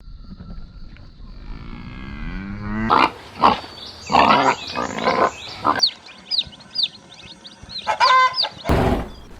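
Farm animals calling: a low drawn-out call, then a run of loud rough calls about three seconds in, followed by a string of short, high falling chirps and one last loud call near the end.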